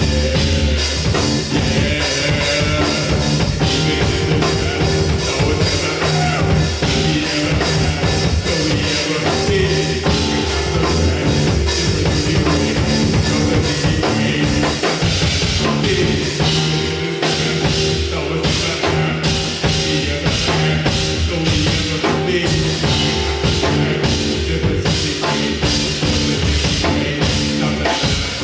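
Live band playing an instrumental passage: drum kit, bass and guitar, with little or no singing.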